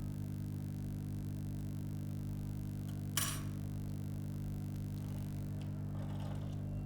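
Steady low electrical hum with a single sharp click about three seconds in.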